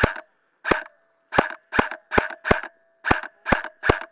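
Airsoft rifle firing single shots in quick succession, nine sharp cracks at an uneven two to three a second.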